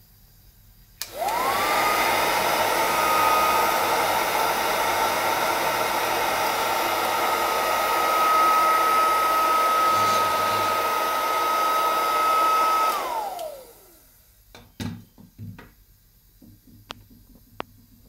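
Vintage Mauser ABC hair dryer (220 V, 450 W) switched on with a click about a second in: its motor whine rises quickly to a steady high tone over the rush of blown air. Near the end it is switched off and the whine falls away as the fan spins down, followed by a few light knocks.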